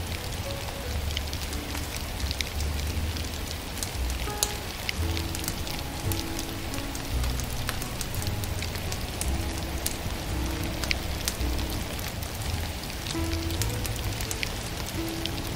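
Wood fire crackling, with scattered sharp pops over a steady hiss, under soft, slow music.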